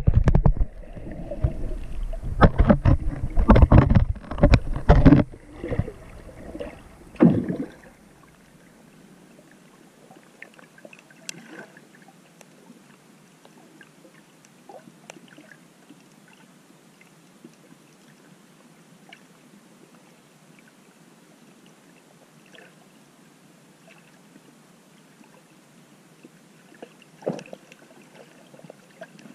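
Water splashing and sloshing around a swimmer for the first several seconds, then faint underwater sound with scattered small clicks and crackles.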